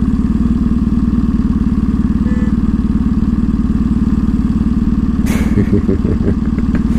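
Motorcycle engine idling steadily while stopped in traffic, with a short hiss about five seconds in.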